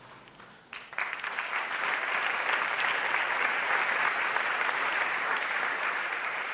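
Audience in a large hall applauding, breaking out suddenly about a second in and holding steady, starting to die down near the end.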